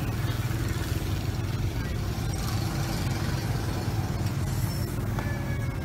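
A steady low motor hum that runs on unchanged.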